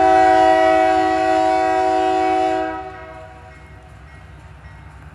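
Diesel locomotive's multi-chime air horn sounding one long blast of several notes at once, as it approaches a grade crossing. The blast holds steady for nearly three seconds, then cuts off and trails away, leaving a low rumble.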